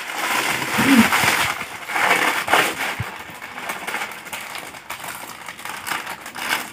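Foil snack packets crinkling and being crushed in the hands, a dense run of small crackles that is loudest in the first few seconds.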